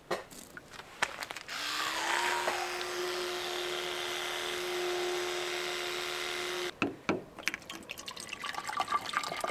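Electric toothbrush buzzing during tooth brushing: its hum rises briefly in pitch as it switches on about a second and a half in, holds steady for about five seconds, then cuts off suddenly. Afterwards water splashes and trickles as it is poured from a plastic bottle into a flask.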